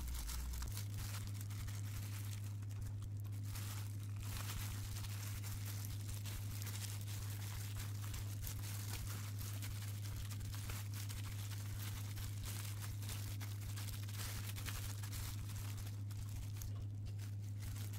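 Disposable plastic gloves crinkling faintly as handfuls of seasoned rice are pressed into fried tofu pouches, over a steady low hum that starts about a second in.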